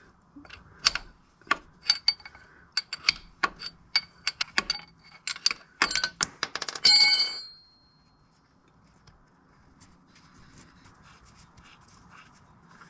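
Sharp, irregular metallic clicks and clinks of a wrench and 17 mm hex bit on a Vanagon transmission's fill plug as it is loosened. They end in a short ringing clatter about seven seconds in, followed by faint handling as the plug is turned out by hand.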